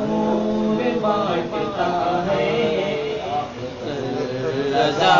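A man chanting an Urdu manqabat, a devotional poem, in drawn-out melodic phrases, holding a low note for the first second.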